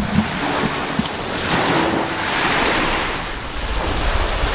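Small waves breaking and washing up on a sandy shore, swelling about a second and a half in and easing off before building again, with wind buffeting the microphone.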